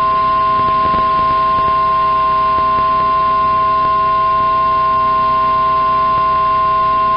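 Weather radio warning alarm tone, a single loud steady tone near 1050 Hz over radio hiss, with a fainter lower tone beneath it. It is the attention signal that comes before a severe thunderstorm warning bulletin.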